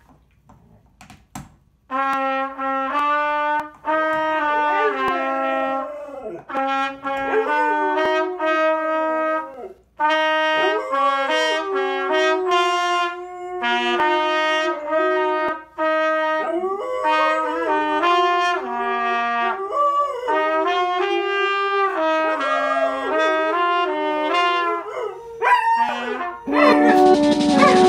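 A trumpet playing a run of held notes while a dog howls along, its voice sliding up and down around the trumpet's pitches. The playing starts about two seconds in, after a near-quiet pause, and keeps going with short breaths between phrases.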